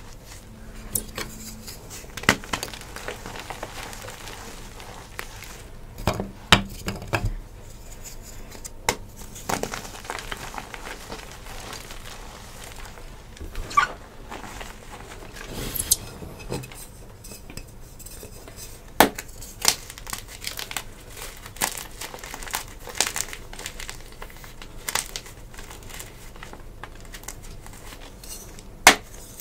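Hands crushing and crumbling dyed gym chalk: a soft, crackly crumble of powder broken by irregular sharp crunches and snaps as chunks give way.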